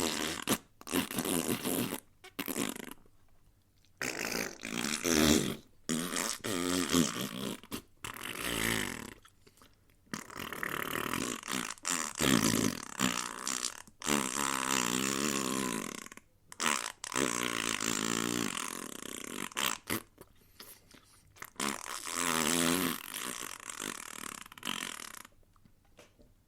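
A series of mouth farts: lips blown into buzzing raspberries one after another, some short and some held for a second or more, with brief pauses between, stopping near the end.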